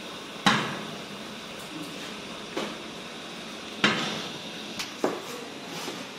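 Metal spoon clanking against the rim and sides of a large aluminium cooking pot while a stew is stirred: a handful of sharp knocks, the loudest about half a second in.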